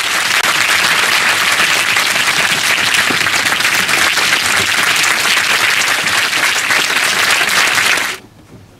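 A large audience applauding loudly, dense steady clapping that cuts off suddenly about eight seconds in.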